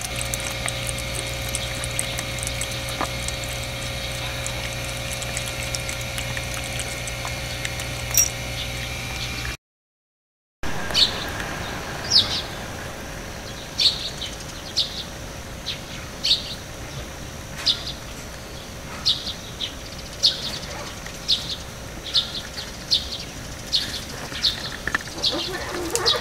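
A steady mechanical hum for roughly the first ten seconds. Then, after a brief dropout, a small bird calls over and over, a short high falling chirp about once a second.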